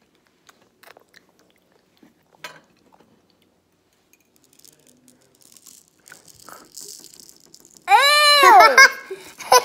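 Candy sprinkles rattling in a plastic shaker as it is tipped up to a mouth, among faint clicks of eating. About eight seconds in, a child lets out a loud high-pitched squeal that rises and falls.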